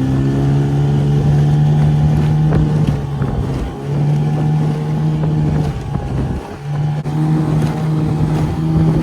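Small tiller-steered outboard motor driving a dinghy at speed: a steady, loud engine drone that dips twice, briefly, as the boat runs flat out.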